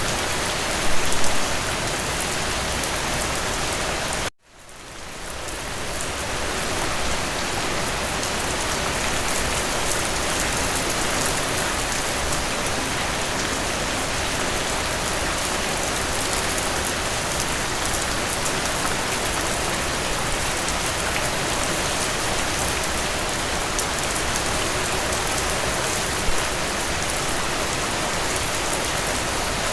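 Steady rain falling, a dense even hiss, with a few louder spatters about a second in. About four seconds in the sound cuts out abruptly and fades back up over a couple of seconds.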